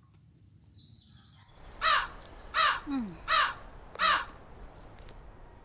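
A bird calling four times in a row, each call falling in pitch, about three-quarters of a second apart. A steady high drone of insects runs underneath.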